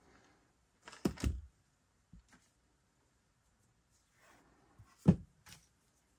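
Handling noises of stamping supplies on a tabletop: a thump and knock about a second in, a couple of small ticks, light rustling, then a sharp click about five seconds in, the loudest sound.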